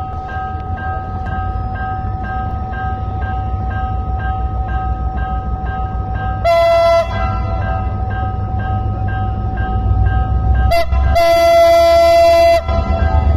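Henschel diesel locomotive pulling a train away from a station, its engine rumble building. Its horn sounds a short blast about halfway through, then a quick toot and a longer blast near the end.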